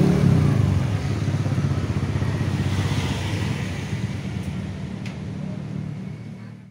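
Motor scooter engine running at a steady idle, a low rapid pulsing that slowly fades away over the last few seconds.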